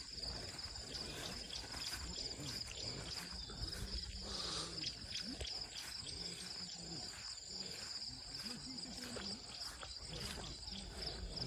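Insects trilling steadily: one unbroken high-pitched trill, over a faint low rumble.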